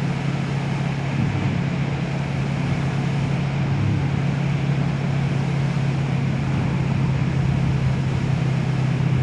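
Kawasaki Vulcan motorcycle engine running steadily at cruising speed, with wind noise on the microphone.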